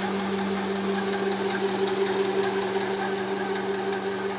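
Shoebox Freedom 8 high-pressure air compressor running steadily while filling a 4500 psi air tank: an even hum with a rapid light ticking over it.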